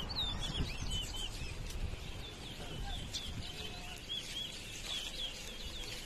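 Caged towa-towa seed finches singing in a bird race, each song counted: many quick, high chirping notes in a row over a low background rumble.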